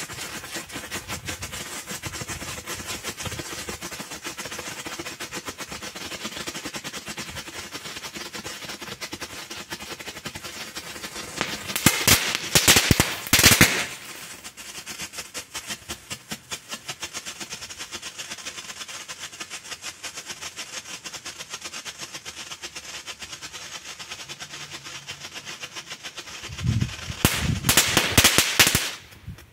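Three F1 youth strobe-flash fireworks burning together on the ground: a fast, dense crackle of small pops, with two louder spells of harsh crackling about twelve seconds in and near the end.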